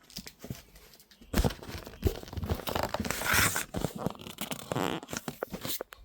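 Rustling, crinkling and knocking of packaging as boxed fireworks cakes are handled and shifted, in irregular bursts that start about a second and a half in and stop just before the end.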